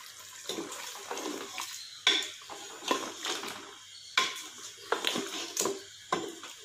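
A spoon stirring mutton and yogurt in a metal pot: wet squelching broken by irregular scrapes and clinks of the spoon against the pot.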